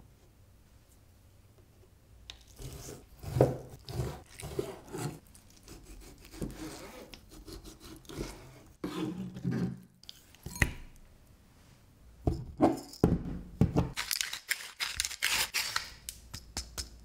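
A chef's knife cutting raw chicken breast into cubes on a plastic cutting board: irregular slicing strokes and knocks of the blade on the board. Near the end, a rapid scratchy grinding as black pepper goes onto the chicken.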